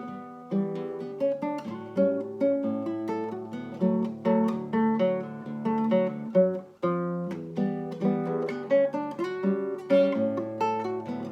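Solo acoustic guitar played fingerstyle: a quick plucked melody over a moving bass line, notes ringing and decaying.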